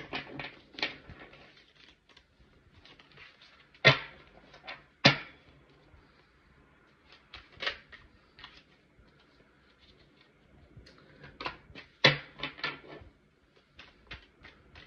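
Tarot cards being shuffled and handled in the hands: scattered soft card clicks and short flurries of them, with three sharper taps, about four, five and twelve seconds in.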